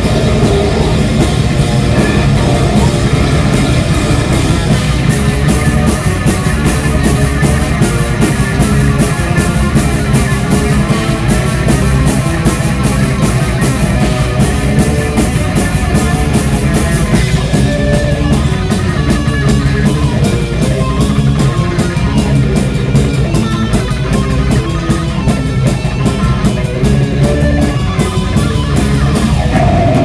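Heavy metal band playing live: electric guitars and a drum kit, with fast, closely spaced drum and cymbal hits, heard from right beside the drums.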